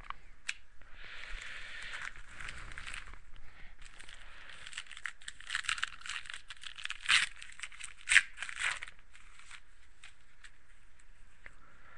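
A trading-card pack wrapper being torn open and crinkled, with a couple of sharper, louder rips about seven and eight seconds in.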